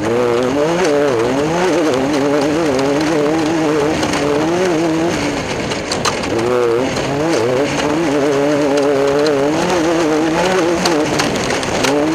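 Class 10 off-road race car engine running hard, its revs wavering up and down continuously. The revs ease off briefly about halfway through, then climb again, with scattered sharp clicks and knocks.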